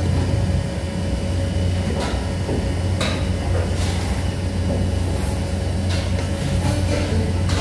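Steady low drone of electroplating-line machinery on a screw-plating factory floor, with a few light knocks scattered through it.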